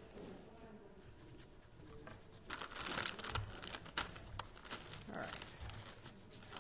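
Fingertips rubbing microglaze through a stencil onto cardstock: dry rustling scuffs, faint at first and busier from about two and a half seconds in, with a few light clicks.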